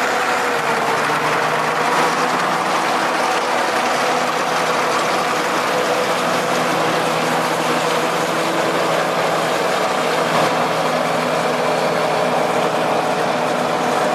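Heavy log truck's engine running steadily as the truck drives along a muddy track.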